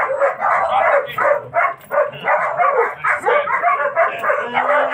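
German shepherd barking repeatedly and fast, several barks a second, in an aggression drill while it attacks a decoy.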